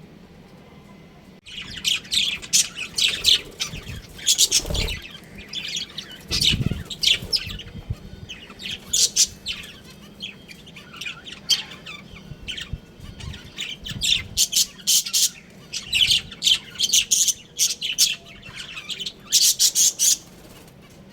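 Budgerigars chirping and chattering in a dense stream of short, high calls, starting about a second and a half in.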